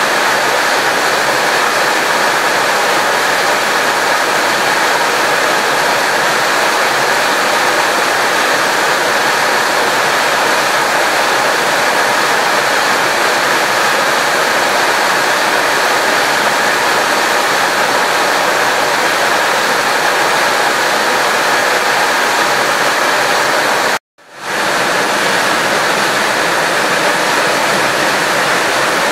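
Steady, loud rushing noise of heavy rain and fast-flowing muddy water. The sound cuts out for a split second near the end, then resumes.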